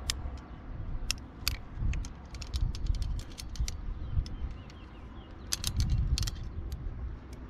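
Metal climbing gear being handled: carabiners and quickdraws clicking and clinking in irregular sharp clicks that come in clusters, over a low rumble.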